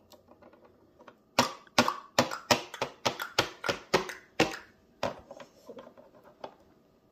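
A run of sharp clip-clop taps imitating a horse's hoofbeats, about three a second for some three seconds, then several softer taps.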